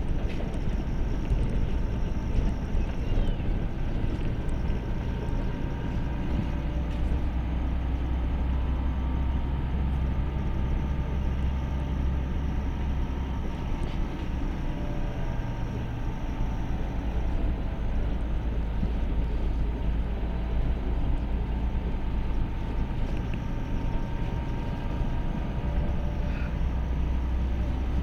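LiAZ city bus engine running under way, heard from inside the passenger cabin: a steady low drone that shifts in pitch a few times as the engine speed changes.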